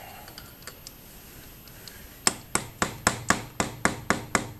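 Light, even taps, about four a second, starting a little after two seconds in: a screwdriver being tapped against a stuck motorcycle oil filter's metal canister to work it loose counterclockwise.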